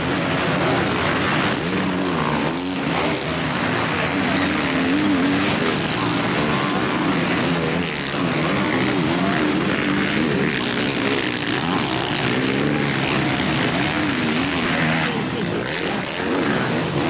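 Several motocross bikes racing on a dirt track, their engines revving up and down as the riders shift and go through the turns.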